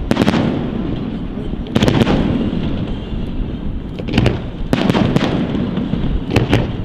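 Fireworks display: aerial shells bursting in clusters of sharp bangs every second or two, over a continuous low, echoing rumble.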